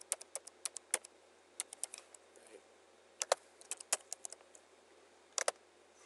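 Typing on a computer keyboard: sharp, irregular keystroke clicks in short runs with pauses between them.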